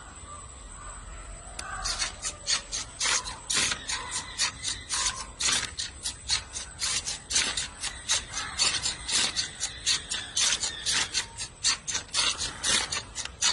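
Micro servo motors of a small four-legged walking robot buzzing in short rapid bursts, about three or four a second, as they swing its legs through each step. The bursts start about two seconds in and keep up an even rhythm.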